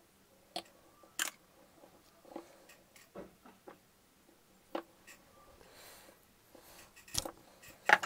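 A few scattered sharp clicks and small snips of hand tools at work on electrical wire: pliers stripping the insulation from the cord's wire ends, and tools tapping on the desk. The loudest clicks come about a second in and near the end.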